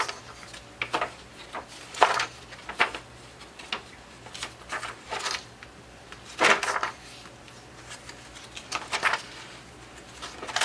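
Pages of a paper workbook being turned and handled: about ten short rustles and taps spread out unevenly.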